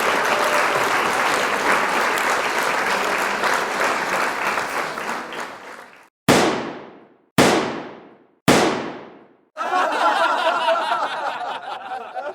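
Applause fading out, then three sharp struck hits about a second apart, each ringing away, then someone chuckling.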